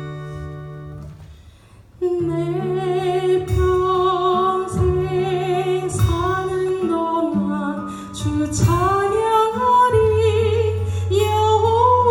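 Live worship band music: a held chord fades out, and after a brief pause a new praise song starts, with a wavering melody over sustained low notes and guitar.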